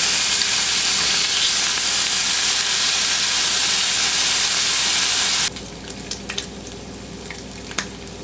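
Thick-cut bacon sizzling in fat in a hot stainless steel frying pan as the strips are turned. The loud, even sizzle drops abruptly about two-thirds of the way through to a quieter hiss, with a few light metal clicks of tongs against the pan.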